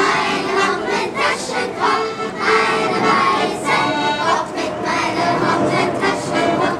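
A children's choir singing a Yiddish song, accompanied by a klezmer band with accordion.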